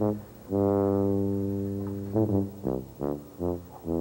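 Low brass instrument playing a tune: a few short notes, one long held note from about half a second in that slowly fades over a second and a half, then a string of short notes at changing pitches.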